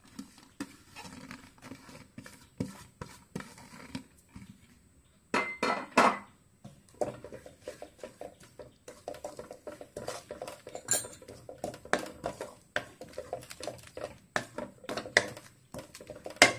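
Wooden spatula scraping and knocking against an aluminium kadai as grated coconut is stirred into thick jaggery syrup. There is a louder clatter about five to six seconds in, then steady scraping.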